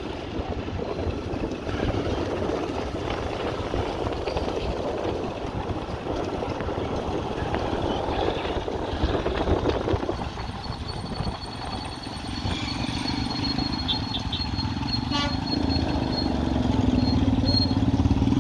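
Motorcycle taxi ride heard from the pillion, with wind rushing on the microphone and the bike's engine and road noise. After about ten seconds the rush eases and a steady low engine drone takes over, growing louder toward the end.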